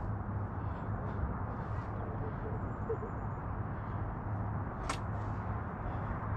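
Steady low rumble of outdoor background noise, with one sharp click a little under five seconds in.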